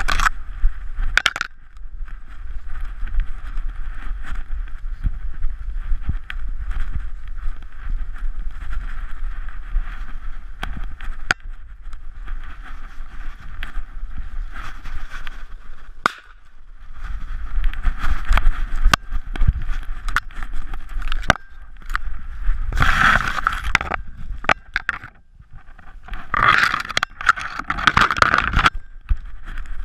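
Handling noise from a GoPro Hero3 Black in its housing strapped to a Weimaraner moving through snow and grass: a steady low rumble with a rushing hiss and many sharp clicks and knocks. About 23 seconds in, and again near the end as the dog pushes into dense brush, louder scraping surges as stems rub over the camera.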